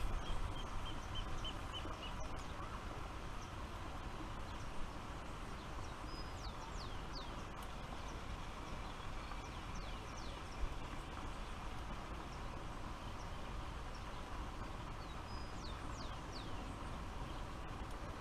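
Birds calling over a steady low background rumble. In the first two seconds there is a row of about eight short, high, evenly spaced notes, slightly falling. After that come scattered quick downward-sweeping chirps, with a soft knock about ten seconds in.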